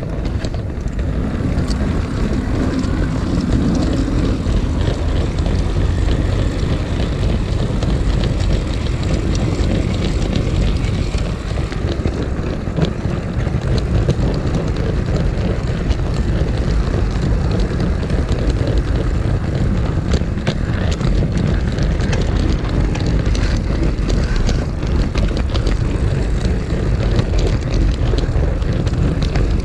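O gauge model train running along garden track, heard from a camera riding on it: a loud steady rumble of wheels and drive on the rails, with frequent small clicks.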